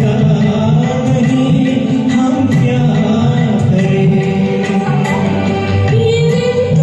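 Music with singing: a Hindi film-song karaoke track with light percussion.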